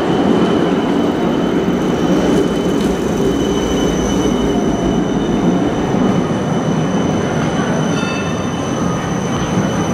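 Red low-floor city tram, a Siemens Combino, passing close by: steel wheels running on the street rails with a rumbling roll and a thin, steady high whine.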